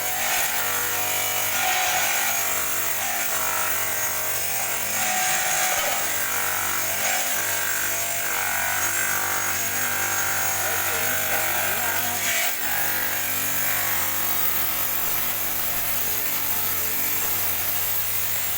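Electric stone-cutting machine running steadily, its motor humming and its blade grinding through stone, with a brief dip about twelve seconds in.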